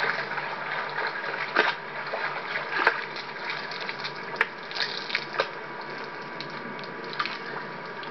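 Swimming-pool water splashing and sloshing as a person climbs out over the edge, with a few short sharp splashes over a steady hiss.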